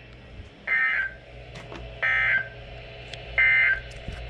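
Emergency Alert System end-of-message tones from a weather radio: three short bursts of warbling SAME data tones, about 1.4 seconds apart, signalling the end of the severe thunderstorm warning.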